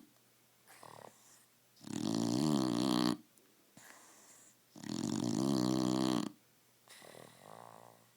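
A sleeping dog snoring: two long, loud, pitched snores about three seconds apart, each lasting about a second and a half, with softer breathing sounds in the pauses between them.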